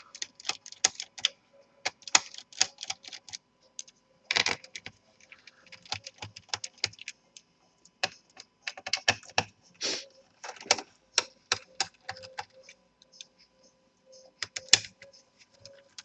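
Irregular light clicks and taps of a small screwdriver and screws as the screws are worked out of a laptop's plastic bottom case and handled, with a few louder clicks among them.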